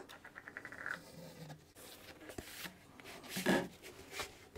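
A poster tube being opened and a rolled paper poster slid out of it: faint rubbing and paper rustling, with one louder brief rustle about three and a half seconds in.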